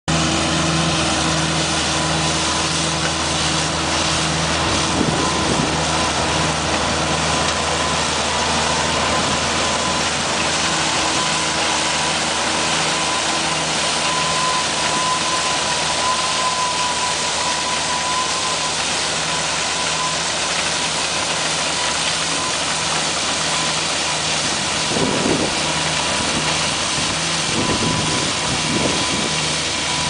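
Oliver Super 77 tractor's six-cylinder engine running steadily under load, driving an Allis-Chalmers All-Crop 60 pull-type combine that is threshing wheat. The combine's machinery adds a dense mechanical din with a steady whine.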